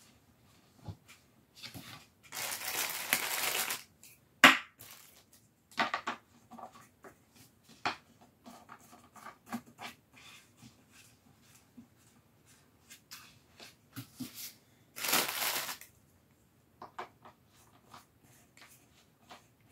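A metal shelf post being screwed by hand into a wooden shelf board: scattered clicks, knocks and scraping from the threaded joint, with a sharp knock about four seconds in. Two longer rasping rushes, one about two seconds in and one about fifteen seconds in.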